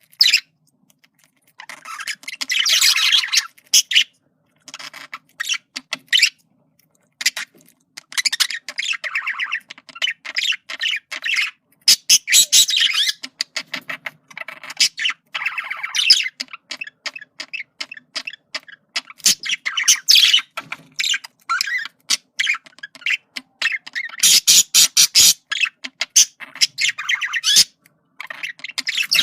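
Male budgerigar chattering: a rapid run of warbles, clicks and squawky chirps, broken into bursts by short pauses.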